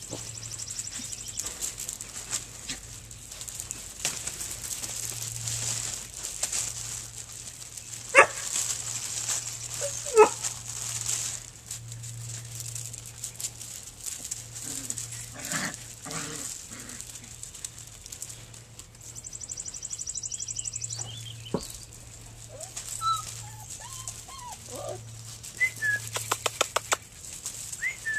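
Young puppies scrambling and scuffling over gravel, with a couple of sharp, short puppy yelps about 8 and 10 seconds in. Small chirping calls follow near the end.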